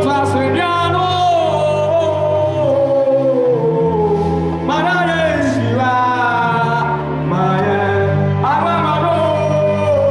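A man singing a gospel worship song in long, gliding phrases over held chords and bass notes on an electronic keyboard.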